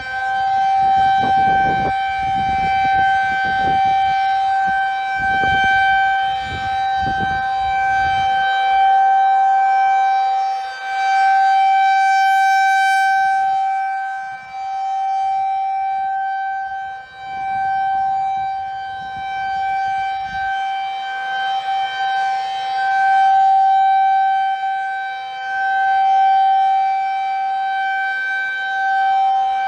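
Federal Signal 2001 rotating tornado siren sounding a steady single-pitch tone during its monthly test. The tone swells and fades every few seconds as the siren head turns.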